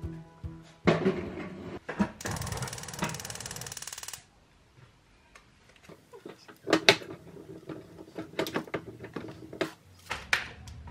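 A fast, even mechanical rattle for about two seconds, then scattered knocks and clicks.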